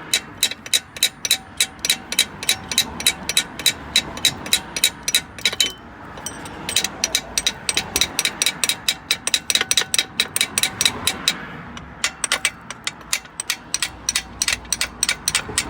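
Hammer tapping rapidly on a metal split bush in an alternator mounting casting, about four or five sharp ringing metal-on-metal taps a second, with two short pauses. The taps are meant to drive along a bush that is probably seized in the casting.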